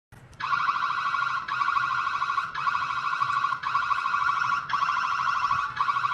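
Electronic alarm siren from a smart home control panel's alarm system: a fast-warbling high tone that starts abruptly and repeats in cycles of about a second.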